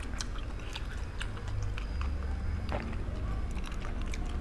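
Faint mouth sounds of sipping and swallowing beer from glass mugs, with scattered small clicks over a low steady rumble.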